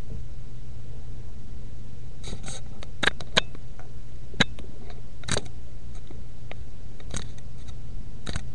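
Steady low hum with about eight sharp, irregular clicks or taps scattered through the second half.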